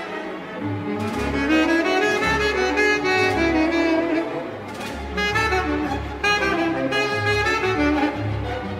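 Tenor saxophone playing a melodic line with a chamber string orchestra, double bass notes moving underneath, in a live third-stream jazz performance.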